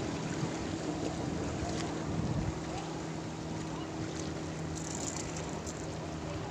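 Steady hum of a motorboat engine running, with wind buffeting the microphone and a few faint ticks about five seconds in.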